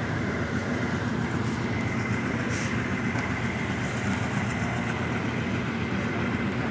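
Passenger train running, heard from inside a carriage: a steady rumble of wheels on the rails, with a brief hiss about two and a half seconds in.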